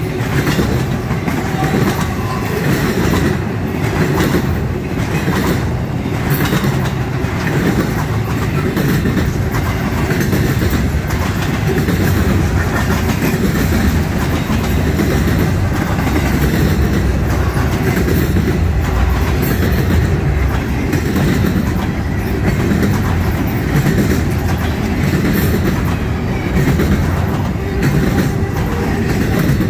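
Intermodal freight train's double-stack well cars rolling past close by: a steady rumble of steel wheels on the rails with repeated clicking of the wheels.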